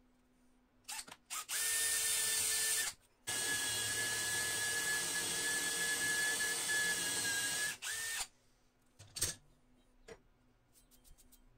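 Electric drill run in two bursts: a short one of about a second and a half, then a longer one of about four and a half seconds, each with a steady high whine that starts and stops sharply. A few clicks and knocks come before and after.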